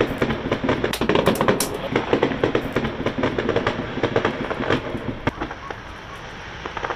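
Fireworks display: a dense, rapid run of pops and crackles from bursting shells, thinning out near the end.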